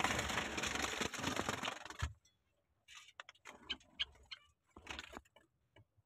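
Rough rustling and scraping handling noise, as the phone brushes against the clay nest pot and straw. It cuts off abruptly about two seconds in, leaving faint scattered clicks and taps.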